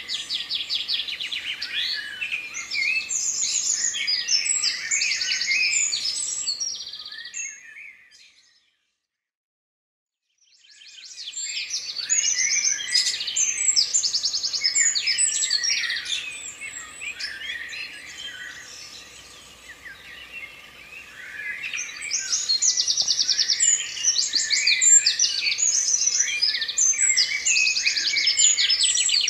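Several songbirds singing together, a dense mix of chirps and fast trills. It fades out about seven seconds in, drops to silence for about two seconds, then fades back in and carries on.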